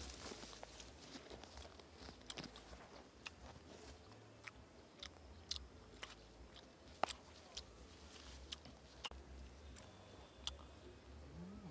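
Scattered sharp clicks and snaps with light rustling, irregular and sparse, the loudest about seven seconds in: leafy branches and twigs being pulled and handled while reaching for fruit.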